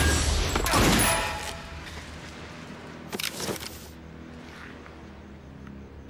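Action-film gunfire sound effects: a rapid volley of shots in the first second and a half, then two more sharp shots close together about three seconds in, over a low music bed.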